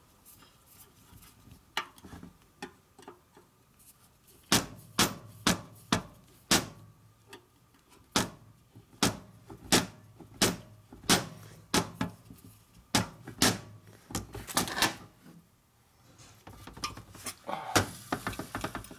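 Screwdriver turning the bearing-retainer screws into a Harley-Davidson WLA star hub, metal on metal. A run of sharp clicks, about one or two a second, starts about four seconds in. It pauses briefly and ends with a short cluster of clicks near the end.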